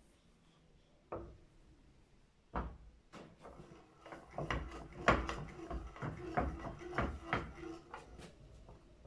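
Metal parts knocking and clattering as a new crown wheel is worked down onto an Isuzu rear differential carrier: a single knock about a second in, another a little later, then a quick run of knocks over the second half.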